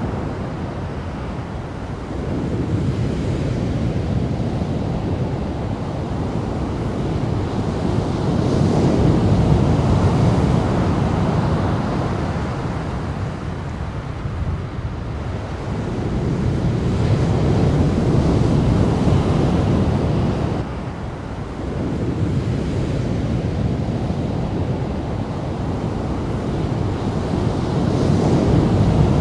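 Ocean surf breaking heavily, swelling and easing every several seconds, with wind rumbling on the microphone.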